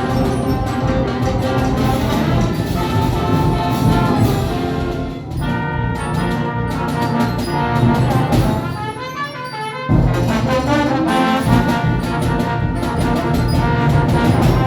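Jazz band playing a lively galop, the brass section of trumpets and trombones in front. The band thins out about nine seconds in, then comes back in together with a sharp accent about a second later.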